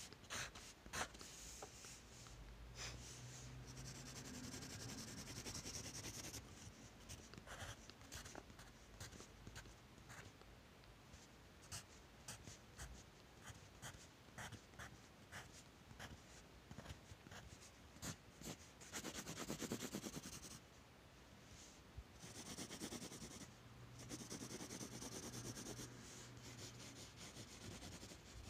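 Faint scratching of a pencil on paper: many short hatching strokes, with longer stretches of steady back-and-forth shading near the end.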